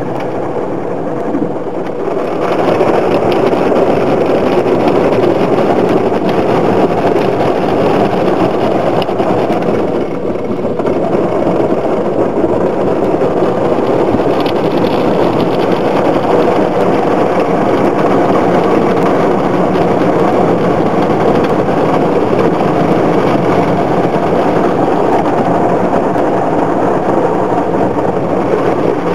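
Automatic car wash heard from inside the car: a steady rush of water spraying onto the windshield with a hum underneath, growing louder about two seconds in and dipping briefly around ten seconds in.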